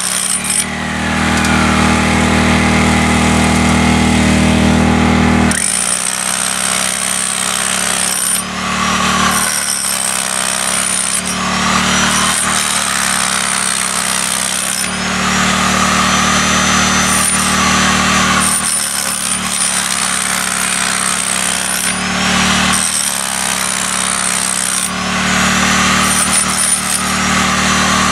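Corded electric hammer drill with a long bit hammering down into the ground, running in bursts of a few seconds that stop and start again repeatedly.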